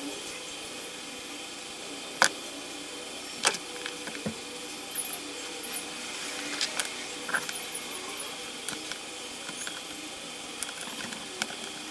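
Clicks and light clinks of hand tools and wires being handled on a workbench, including wire strippers working on wire ends. A few sharp clicks stand out, the loudest about two seconds in, over a steady faint hiss.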